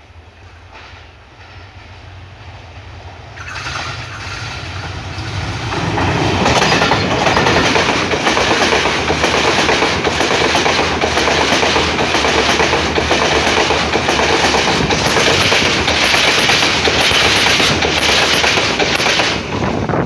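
Passenger train hauled by a Class M11 diesel locomotive approaching and passing close by. The low engine rumble grows louder over the first six seconds, then the carriages pass with a loud rush and a rapid clickety-clack of wheels over the rail joints.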